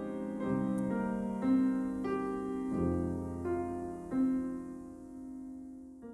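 Piano music with held, ringing notes that die away near the end.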